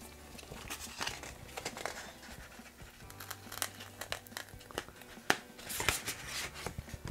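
Blu-ray SteelBook case and its packaging handled: crinkling and rustling with scattered clicks and scrapes, the sharpest click about five seconds in.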